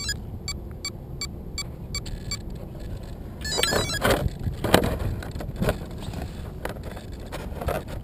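Handling noise picked up through a GoPro mounted on an RC helicopter: a run of light, evenly spaced clicks, then scraping and sharp knocks from about three and a half seconds in as the helicopter's plastic canopy is worked on over the frame, all over a low rumble on the microphone.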